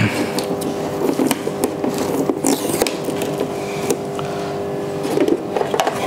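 Clear plastic packaging crinkling and rustling as its cover and sticky tape are pulled off a boxed aquarium top-filter kit, with small scrapes and knocks of the plastic box, and a brighter rip of film about two and a half seconds in. A steady hum runs underneath.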